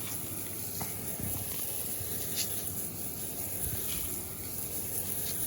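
Steady hiss of a softwash machine spraying a chlorine mix onto dirty concrete as a pre-treatment, with a low steady hum underneath.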